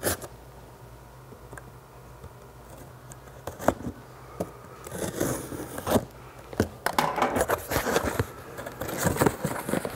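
A knife blade slitting the packing tape on a cardboard box, then the cardboard flaps pulled open. It starts with a few sharp clicks, and from about halfway through there is dense scraping and crinkling of cardboard and tape.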